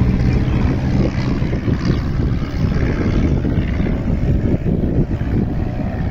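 Aerobatic biplane's propeller engine droning overhead, mixed with wind rumbling on the microphone. Its engine note rises slowly in the second half.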